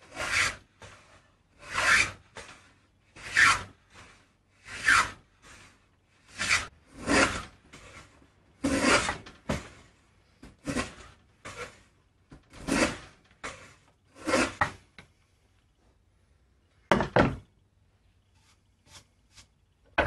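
Antique D R Barton wooden plow plane cutting a groove along a board's edge, a dozen or so rasping strokes about every second and a half. The strokes stop about three-quarters of the way through, and a short double knock follows.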